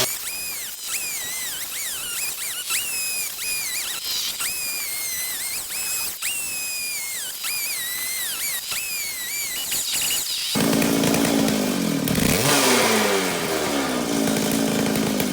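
Gas-powered concrete saw cutting concrete: a high blade whine that dips and recovers in pitch about once a second as it loads. About ten seconds in, a lower engine note takes over and rises and falls.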